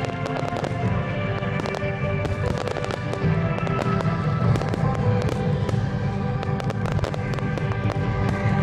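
Fireworks display: many sharp bangs and crackles of bursting shells, heard over music.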